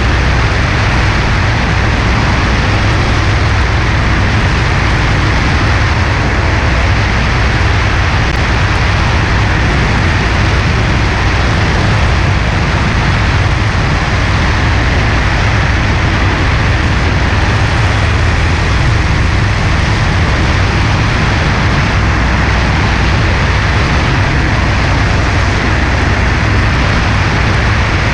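Cessna 140A light aircraft in flight: the steady drone of its piston engine and propeller under heavy, even wind rush. The sound holds unchanged throughout.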